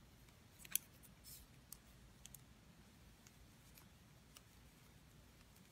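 Faint, scattered clicks of double-pointed knitting needles tapping together as stitches are knitted, the sharpest just under a second in; otherwise near silence.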